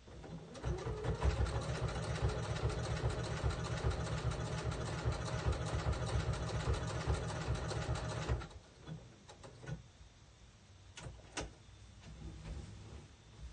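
Sewing machine stitching at a fast, even speed around an appliqué letter on a towel. It stops suddenly about two-thirds of the way through, followed by a couple of sharp clicks.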